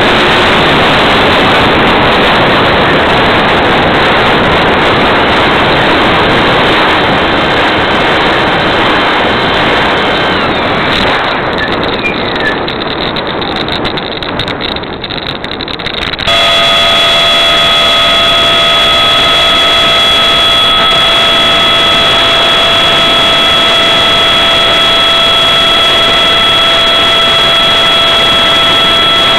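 Habu RC jet's electric ducted fan heard from a camera on the airframe: a loud rush of air with the fan throttled back on the approach, dropping quieter as the model touches down and rolls on the runway. About halfway through the fan comes on suddenly to full power with a loud, steady high whine for the climb-out of the touch-and-go.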